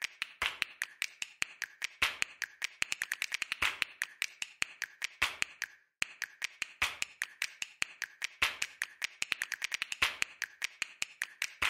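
A rapid, irregular series of sharp clicks, bunching into quick runs and thinning out again, with a brief pause about six seconds in.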